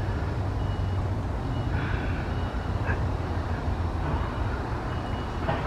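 Steady low rumble of a motor vehicle, with short faint high beeps recurring every second or two, like a truck's reversing alarm.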